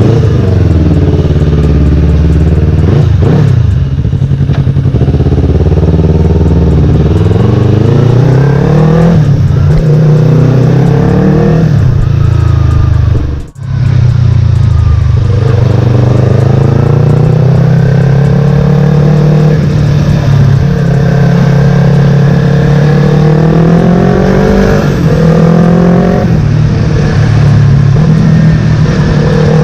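Yamaha R3's parallel-twin engine running on a test run, its pitch rising and falling again and again as it is revved up and backs off. The sound drops out briefly about halfway through. The engine was just fixed by cleaning the starter's carbon brushes, throttle body and injector, and it is running fine so far.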